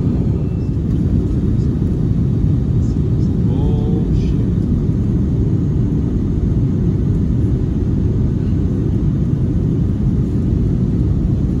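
Steady low rumble of airliner cabin noise, engine and airflow noise of an Airbus A321-231 with IAE V2500 turbofans on its descent, heard inside the cabin at a window seat.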